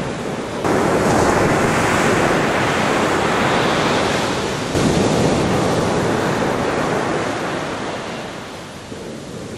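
Ocean surf breaking and washing up the beach, with wind buffeting the microphone. The rush swells suddenly about half a second in and again near five seconds, then eases toward the end.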